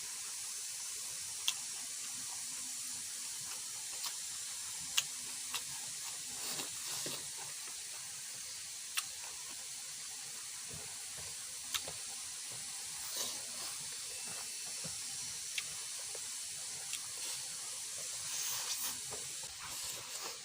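Steady high hiss with about a dozen short, sharp clicks and a few soft smacks scattered through it, typical of someone eating a meal by hand.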